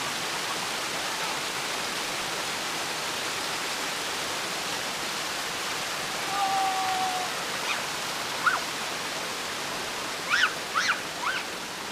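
Water pouring over a small stepped waterfall of rock ledges: a steady rushing hiss, with a few brief high-pitched sounds near the end.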